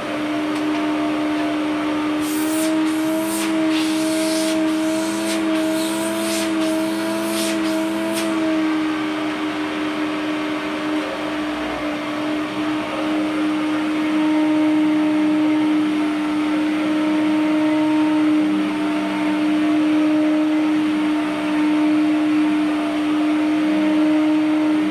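A 1991 S.C. Johnson Vectron vacuum cleaner's freshly rebuilt 10 amp Lamb motor running steadily with a constant whine while it cleans carpet. For a few seconds early on its pitch wavers slightly, along with a run of sharp clicks and crackles.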